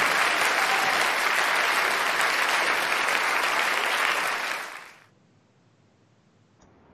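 Applause, a dense even clatter of clapping that fades out about four and a half seconds in, leaving only faint room tone.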